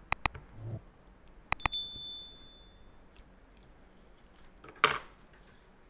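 Subscribe-button sound effect: two quick mouse clicks, then about a second and a half in a click and a bright bell ding that rings on for about a second, and another sharp click near the end.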